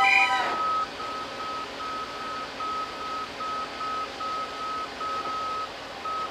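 A heavy vehicle's reversing alarm beeping at a single pitch, about two beeps a second. Over its first beeps a loud horn blast cuts off sharply about half a second in.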